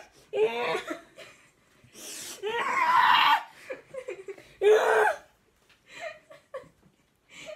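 Two young women laughing hard in several bursts, the loudest around three and five seconds in, trailing off into softer giggles.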